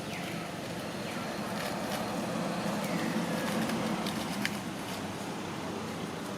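Steady outdoor background rumble, like distant traffic, swelling a little midway. A few faint high chirps falling in pitch and some small clicks sit on top.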